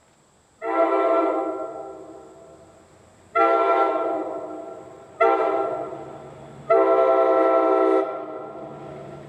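Locomotive air horn blown in four blasts, each a sustained chord. The first three blasts fade as they go on; the last is held steady for about a second and then cut off.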